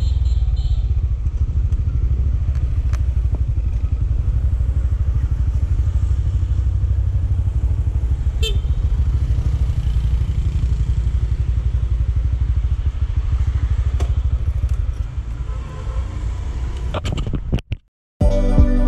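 Honda motorbike running at low speed, with a steady low rumble of engine and road noise. It quietens about 15 seconds in, a few clicks follow, the sound cuts out, and background music with a steady beat starts near the end.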